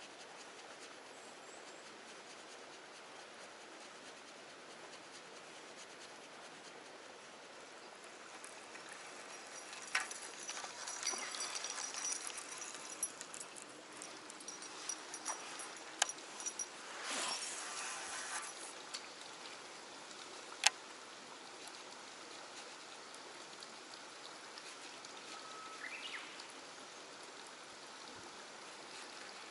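Baitcasting reel being worked: a run of clicks and rustling with a thin, high whir for about ten seconds in the middle, then a single sharp click. A faint steady hiss lies underneath throughout.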